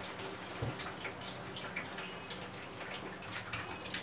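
Wooden rolling pin rolling out dough on a marble rolling board: a steady run of quick, irregular light clicks and scrapes, with one dull knock about two-thirds of a second in.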